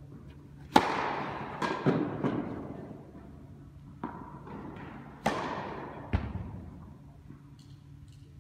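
Tennis ball struck hard by a racket on a serve about a second in, followed by more racket hits and ball bounces in a rally. Each sharp crack echoes and dies away slowly around the indoor tennis hall.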